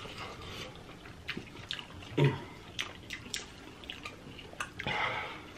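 Wet mouth sounds of eating sauce-covered chicken wings: scattered lip smacks and sticky chewing clicks, with a short hum about two seconds in and a breathy rush near the end.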